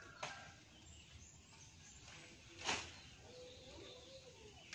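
Faint outdoor ambience broken by short rustling crackles of leaves, the loudest a little past the middle, as leafy branches are pulled off a small tree. A faint bird call follows.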